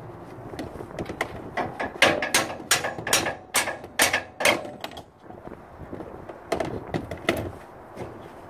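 Sharp metallic clicks and clanks, a quick run of about three a second, then a few more a couple of seconds later, from the steel pivot and locking pin of a folding ROPS roll cage being worked by hand.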